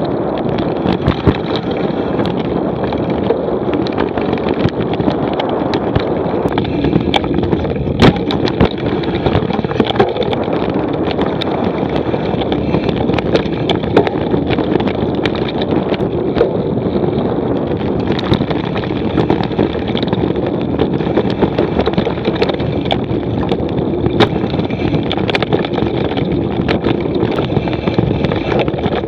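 Mountain bike descending a dirt singletrack at speed. Wind noise roars steadily on the camera's microphone, and the bike rattles and clatters over the trail with frequent sharp knocks.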